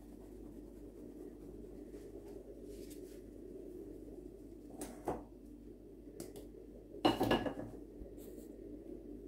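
Flour being sifted through a wooden-rimmed hand sieve over a large aluminium basin. There are soft scratchy shaking sounds, a knock about five seconds in, and a louder clatter of kitchenware about seven seconds in, over a low steady hum.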